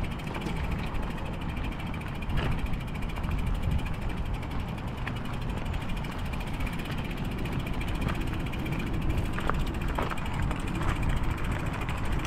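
Mountain e-bike's rear freehub ticking rapidly and steadily as the bike coasts slowly over dry grass and dirt, over a low rumble, with a few louder clicks.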